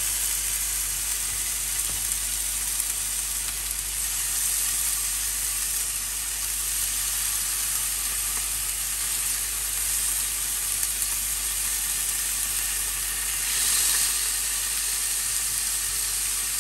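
Raw chicken strips sizzling on a hot oiled ridged grill pan, a steady frying hiss that swells briefly about fourteen seconds in as more pieces are laid on.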